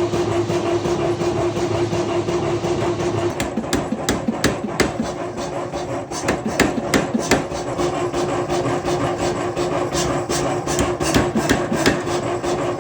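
Forge metalwork on a bar of 4140 steel: many irregular sharp metal strikes over a continuous rasping noise and a steady hum, which drops out for about four seconds in the middle.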